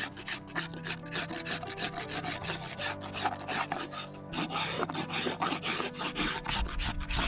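Carving knife shaving a wooden spoon handle: quick, scraping strokes of the blade along the wood, several a second.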